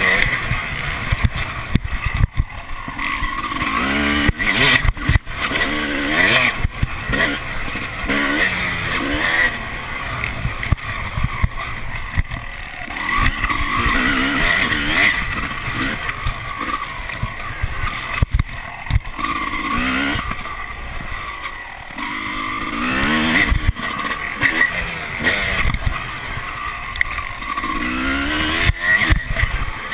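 Dirt bike engine revving up and down over and over as it is ridden hard on a rough trail, with repeated rising sweeps in pitch as it pulls through the gears. Wind rush and sharp knocks from the bumps sound over the engine on the chest-mounted camera.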